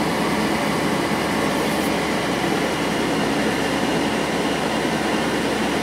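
A 2 kW diesel air heater running steadily, its blower fan pushing out warm air while the burner is still heating up.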